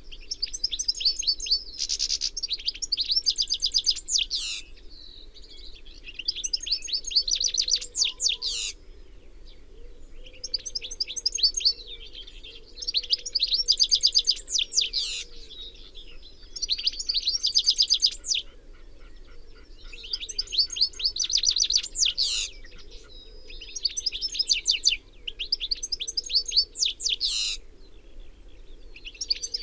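European goldfinch singing: bouts of rapid, high twittering notes, each bout about two seconds long, with short pauses between them.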